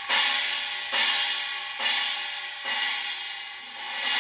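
18-inch effects cymbal from an Iznik cymbal set, struck about once a second with a bright, ringing crash each time. Near the end the wash swells up again and rings on.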